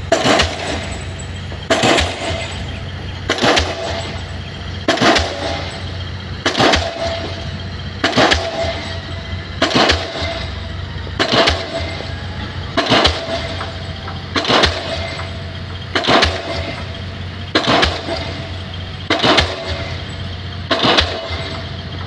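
Diesel pile hammer driving a precast concrete pile: a sharp bang with a brief ringing tail about every one and a half seconds, about fourteen blows in all, over a steady low engine hum.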